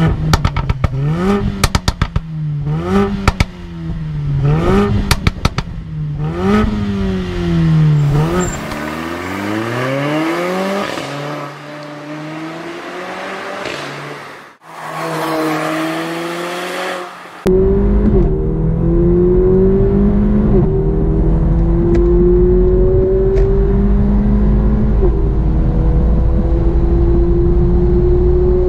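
Mercedes-AMG A45's 2.0-litre turbocharged four-cylinder revved repeatedly at a standstill through its exhaust, with sharp pops and crackles on each lift-off. Then it is heard from the roadside as the car drives past, its pitch sweeping. From about two-thirds in, it is heard from inside the cabin under full-throttle acceleration, loud and steadily rising in pitch.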